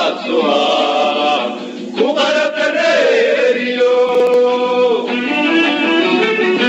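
Singing in a chant-like style, with long held notes, over background music.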